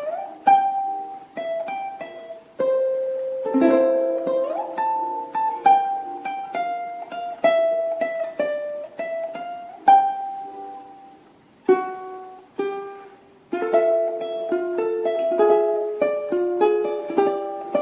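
Tenor ukulele, a Kanile'a K-1T strung with Galli UX730 strings, played solo: plucked melody notes over chords, with a slide up to a higher note about four seconds in and a couple of brief pauses in the second half.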